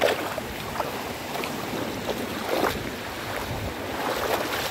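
Shallow surf washing over sand, with wind on the microphone, broken by a few short splashes as a small hooked fish is reeled in through the shallows.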